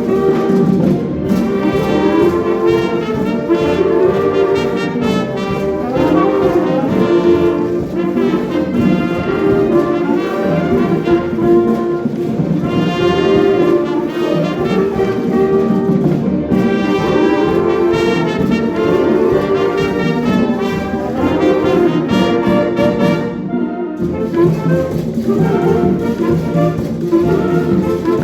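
Wind band playing in concert, with brass to the fore and several instruments sounding in harmony; the sound drops out for a moment near the end, then resumes.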